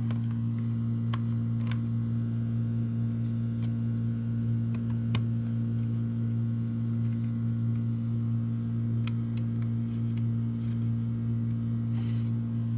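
Steady low electrical hum, with faint scattered clicks and taps of small plastic vacuum parts being handled and fitted back together.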